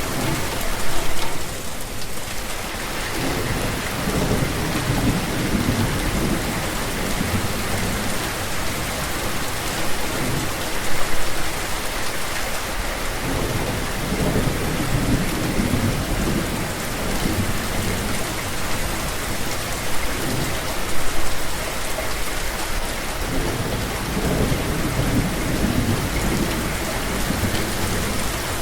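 Steady, heavy rain falling, with low rumbles of thunder rolling in three times, each lasting a few seconds.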